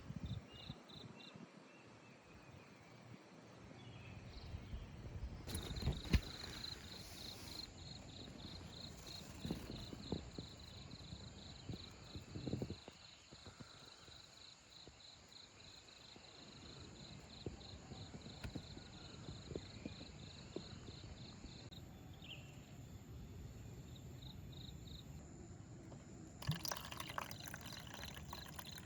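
Insects trilling outdoors in a fast, even pulsing rhythm, under low rustling with a few light knocks.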